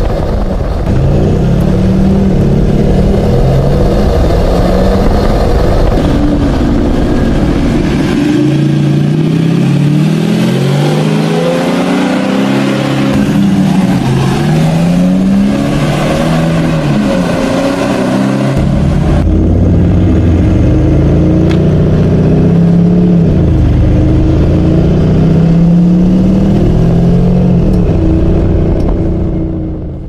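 Mercedes-Benz G350d diesel accelerating through its aftermarket valvetronic catback exhaust. The engine note rises again and again, each rise broken off by an upshift, and the sound fades out at the end.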